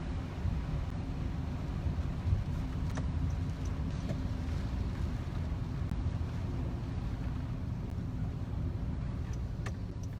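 Steady low rumble of a moving car heard from inside the cabin: engine and tyre road noise, with a couple of faint clicks.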